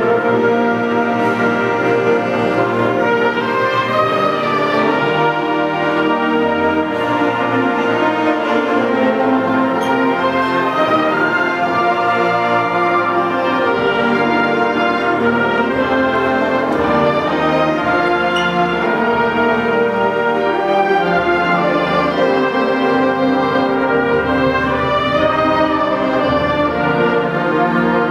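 A large concert band of woodwinds and brass playing a slow, sustained passage, with low bass notes growing stronger about halfway through.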